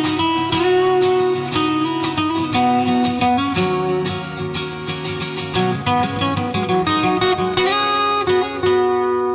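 Instrumental background music with plucked-string notes, guitar-like.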